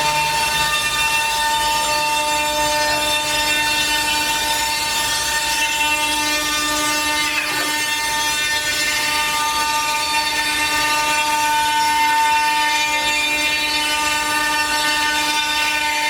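HOMAG five-axis CNC woodworking machining centre running with a steady, loud mechanical whine made of several fixed pitches.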